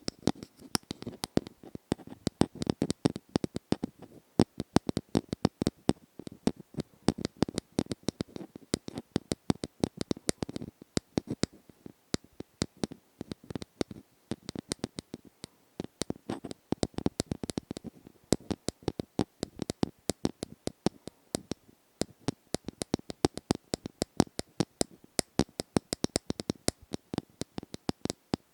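Close-miked ASMR tapping: rapid, irregular taps and clicks, several a second, with short pauses between runs.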